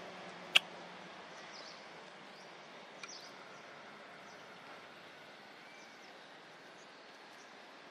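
Outdoor natural ambience: a steady soft background hiss with a few faint, brief bird chirps. One sharp click about half a second in, and a smaller one about three seconds in.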